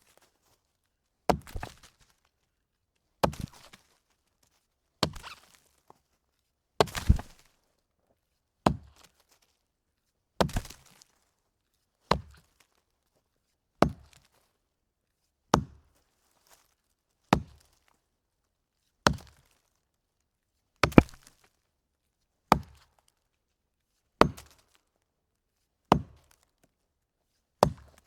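Axe chopping a wooden log: sharp, evenly paced blows about every second and three-quarters, some doubled or followed by a brief clatter.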